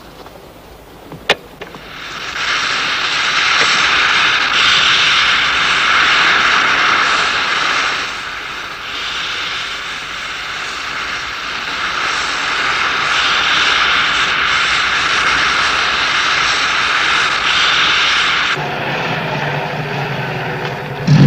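Jet-powered ski thrust pack sound effect: a click about a second in, then a loud, steady jet hiss starting about two seconds in, dipping briefly around the middle. The hiss cuts off near the end and a lower hum takes over.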